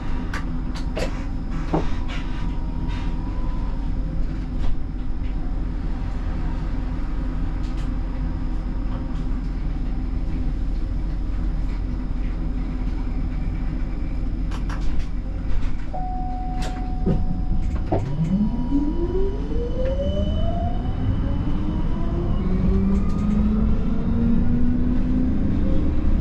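Siemens Combino tram standing with a steady hum, a few clicks and short beeps, then pulling away about eighteen seconds in, its traction drive whine rising steadily in pitch as it accelerates.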